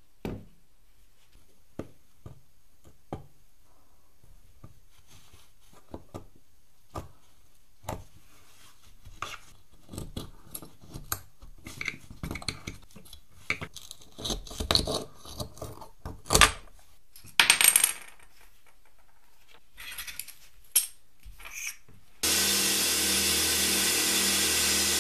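Small toy-car wheels tapped down on a wooden tabletop in a few sharp clicks. A screwdriver then scrapes and pries at the rusted metal hub caps, with clicks, scrapes and a couple of louder clacks. Near the end a sandblaster starts with a steady loud hiss, blasting rust off a hub cap.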